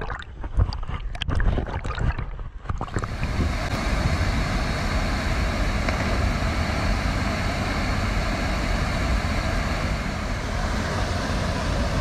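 Muffled underwater bubbling and clicking for about three seconds, then the steady rush of a waterfall and river pool.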